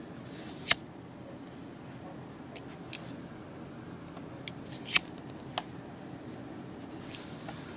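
Pocket lighter being struck: several sharp clicks spread a second or two apart, the loudest about a second in and about five seconds in.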